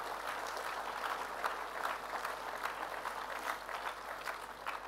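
An audience applauding, with many hands clapping at a steady level.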